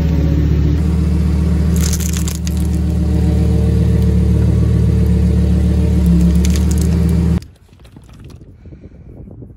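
Car engine running steadily at low speed while a tyre rolls over and crushes a plastic pack of wet wipes, with a crackle about two seconds in and more crackling near six seconds. After about seven seconds the sound cuts off abruptly to a faint rustle.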